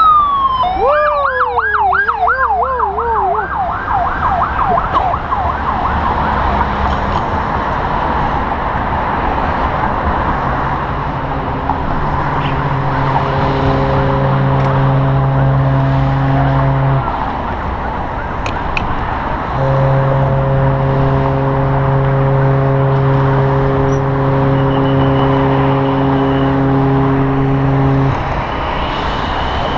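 An emergency-vehicle siren sweeps down in pitch, then switches to a fast warbling yelp of about three cycles a second that fades out within a few seconds. A loud steady background noise runs on, and later a steady low hum sounds twice, for about six and then eight seconds.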